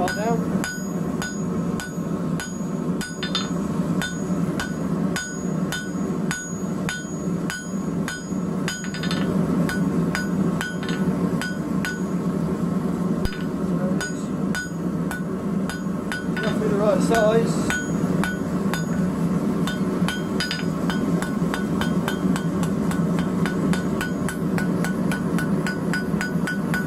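Hand hammer striking a hot metal bar held in tongs on an anvil: a steady run of sharp, ringing blows, about two to three a second, as the bar is forged into shape, over a steady low hum.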